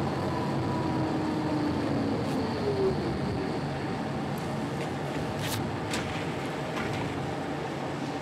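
Interior sound of a moving light-rail tram: a steady running rumble with an electric traction motor whine that falls in pitch and fades over the first few seconds as the tram slows. A couple of brief clicks come about halfway through.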